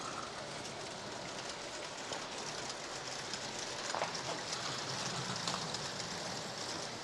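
LGB garden-railway trains running on brass track: a steady rolling wheel noise with fine rapid clicking, growing a little louder after about two seconds.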